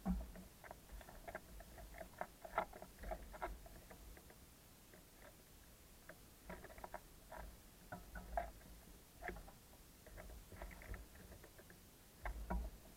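Small birds such as sparrows pecking and scrabbling on a bird-feeding house: irregular light taps and clicks in little clusters, with a few dull thumps.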